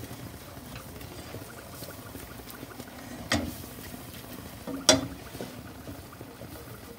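A spoon stirring and scraping a butter-and-flour roux in a stainless steel saucepan, with a faint sizzle as it cooks. The spoon knocks sharply against the pan twice, about three and five seconds in, the second knock louder.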